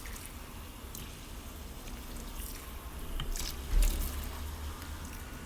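Tap water running and splashing over a stainless-steel sink, rinsing off a vinegar cleaning solution, with scattered drips and a dull bump about four seconds in.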